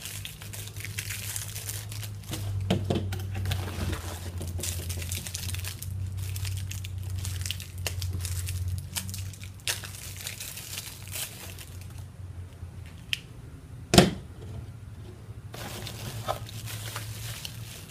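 Plastic packaging crinkling and tearing as a small cardboard box of camera batteries is unpacked by hand, with many small crackles throughout. One sharp knock sounds about three-quarters of the way through, over a low steady hum.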